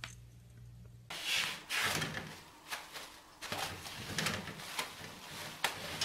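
A low steady hum gives way about a second in to irregular bursts of paper rustling and light rattling as a kitten tugs at and shreds toilet paper hanging from the roll.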